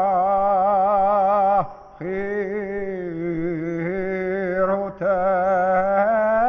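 A solo male voice chanting long held notes with a wavering vibrato. It breaks off for a breath about a second and a half in and again near five seconds.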